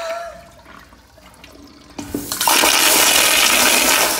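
Flushometer-valve toilet: the rush of one flush dies away, then about two seconds in a sharp click starts a new, strong flush of water through the bowl.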